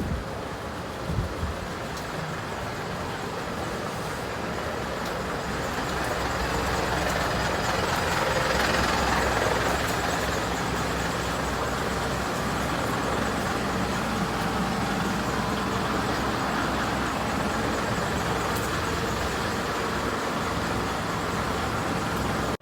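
A heavy vehicle's engine running steadily with a dense mechanical rush, growing louder to a peak about nine seconds in and then holding level.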